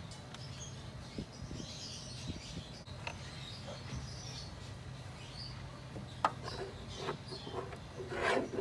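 A wrench on a car battery terminal clamp as it is tightened back on: scattered metallic clicks and scraping, busiest in the last couple of seconds. A steady low hum and faint chirping run underneath.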